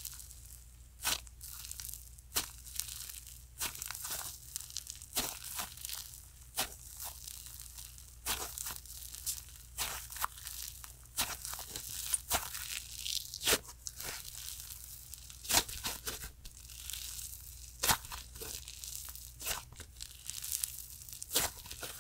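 Soft cream slime being stretched and pressed, giving off a steady crackling sizzle of many tiny air-bubble pops, with sharper pops every second or so.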